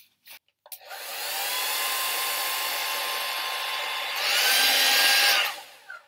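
Handheld hair dryer switched on and blowing steadily, a whooshing rush with a faint motor whine. About four seconds in it gets louder and the whine rises in pitch, then it dies away near the end.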